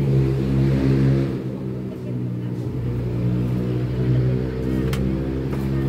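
An engine running steadily at low, even revs, with a brief click about five seconds in.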